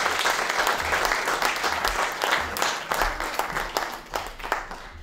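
A small audience applauding, many hands clapping, thinning out and fading away near the end.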